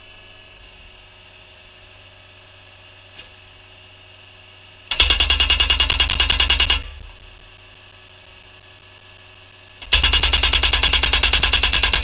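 Premier PD750 skid-steer post driver hammering a wooden post in rapid-fire blows, about ten a second: a burst of nearly two seconds about five seconds in, then continuous driving from about ten seconds in. Between the bursts the Cat track loader's engine idles.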